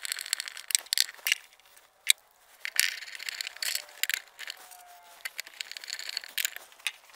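A hand screwdriver driving screws through a metal Blum hinge mounting plate into the cabinet side: a run of uneven clicks and scraping, with one sharp click about two seconds in.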